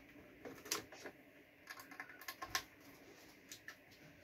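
Faint, irregular clicks and taps of controls being pressed and turned on a guitar multi-effects unit, with the amp volume turned down.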